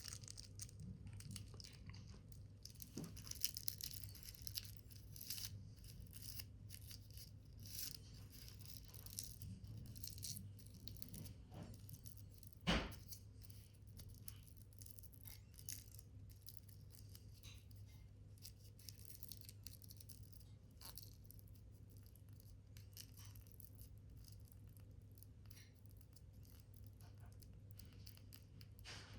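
Paper being handled: faint rustling, crinkling and light taps, with one sharp knock about halfway through, over a steady low hum.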